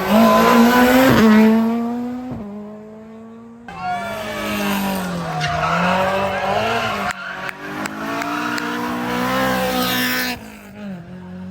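Rally car engines at full throttle. First one accelerates hard, shifting up twice, and fades away. About four seconds in, the sound cuts abruptly to another car whose engine revs rise and fall repeatedly, as when the car is driven sideways through a section of stage. That sound drops off near the end.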